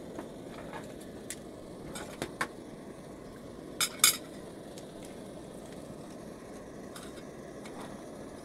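Optimus Polaris stove burner running steadily on canister gas: an even, low rushing hiss. Several light clinks and knocks of metal gear being handled sound over it, the loudest being two sharp clicks about four seconds in.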